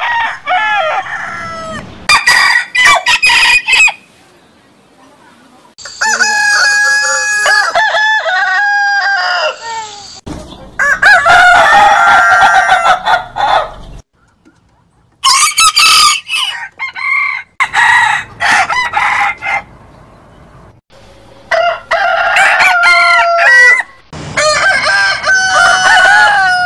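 Roosters crowing one after another: a string of about eight long crows from different birds, each a second or a few seconds long, with short gaps between them.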